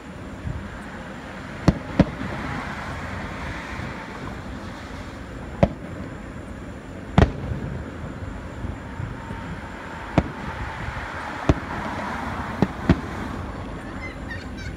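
Aerial firework shells bursting in the distance: about eight sharp booms at irregular intervals, two of them in quick pairs, over a steady background of noise.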